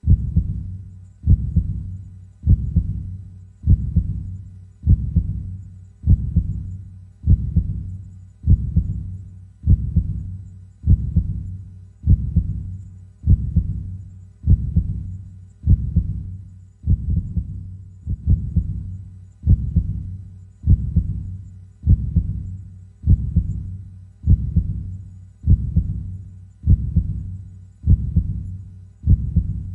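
A slow, steady heartbeat, low and deep, at about fifty beats a minute, each beat dying away before the next.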